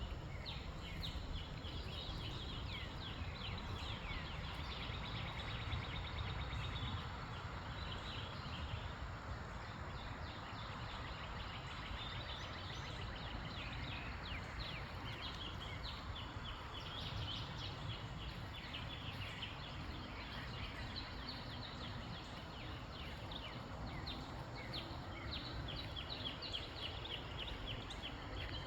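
Several small birds chirping and singing in a continuous chorus of short high calls, over a steady low rumble of wind on the microphone.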